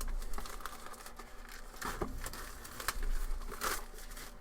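Plastic shrink wrap crinkling and tearing as a trading-card box is unwrapped and opened, in several short rustling bursts.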